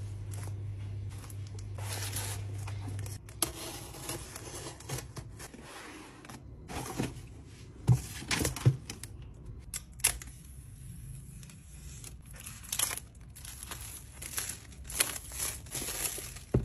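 Parcel packaging being opened by hand: a plastic mailer and cardboard box rustling, crinkling and tearing, with a couple of sharp knocks about eight seconds in as the iPad box is set on the desk.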